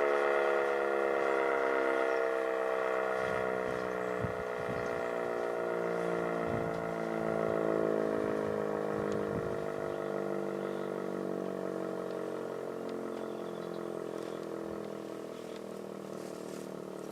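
Sentry 10V outdoor fire siren winding down after being switched off, its pitch sliding slowly lower as it fades.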